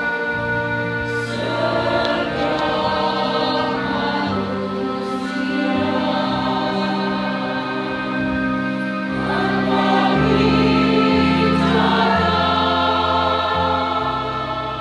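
Church choir singing with electronic organ accompaniment, the organ holding sustained chords over a bass line that changes every second or two.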